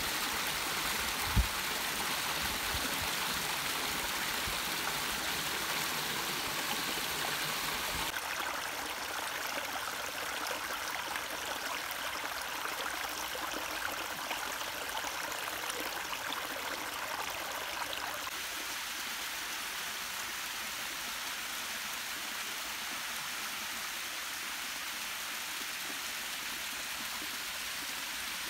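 Shallow rocky stream running and splashing over boulders, with small cascades spilling into a pool: a steady rush of water whose sound shifts twice, about a third and two thirds of the way through. A single low thump comes about a second and a half in.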